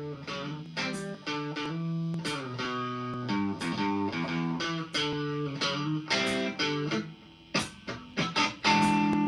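Electric guitar playing alone: a quieter passage of picked single notes and chords, with no bass or drums underneath.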